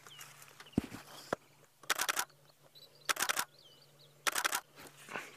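Camera shutter firing in three quick bursts of several frames each, about a second apart.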